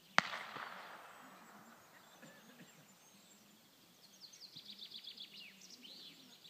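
A single sharp shot, like the blank fired at a retriever working test, cracks once and echoes away. Songbirds chirp in quick runs near the end.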